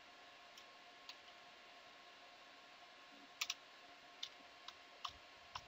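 Faint, scattered computer keyboard keystrokes, a handful of separate clicks rather than fast typing, the loudest a quick pair about three and a half seconds in, over a low steady room hum.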